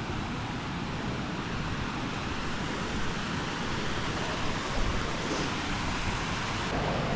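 Rushing water of a rain-swollen mountain river near a waterfall, a steady, even rush, with wind buffeting the microphone in low rumbles.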